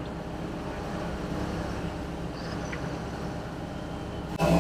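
Engines of Sherp amphibious ATVs running steadily as the machines drive through the water and onto the ice. Music starts abruptly near the end.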